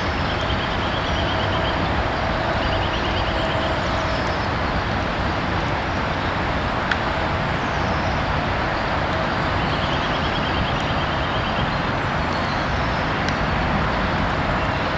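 Train of tank wagons rolling slowly round a curve, propelled by a 1958 Krupp fireless steam locomotive: a steady rumbling noise, with a faint thin tone that comes and goes.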